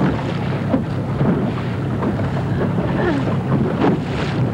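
Steady wind noise on the microphone over the rush of water around a moving boat on open water.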